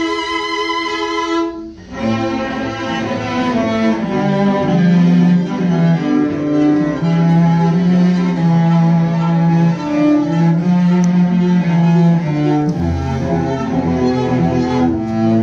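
Bowed cello playing a slow melody of long held notes in its low-to-middle range. It follows a high held string note that breaks off sharply about two seconds in.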